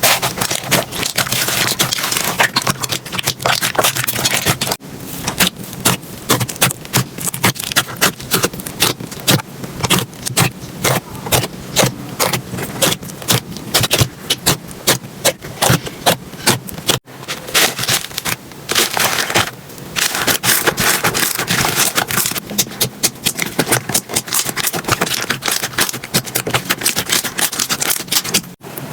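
Slime being squeezed and pressed by hand, giving a dense run of rapid crackling and popping clicks. The sound changes abruptly about five seconds in and again about halfway through as one clip cuts to the next.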